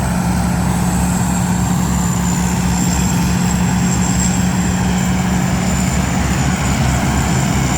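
Combine harvester engine running steadily with a deep hum, over a constant high-pitched whine.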